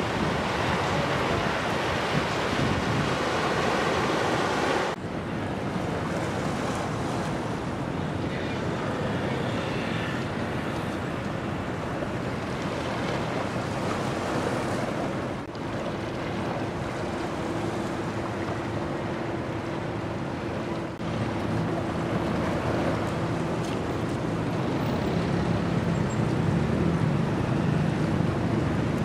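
Wind buffeting the microphone over open water and waves, with a faint steady engine hum in the second half; the background shifts abruptly a few times.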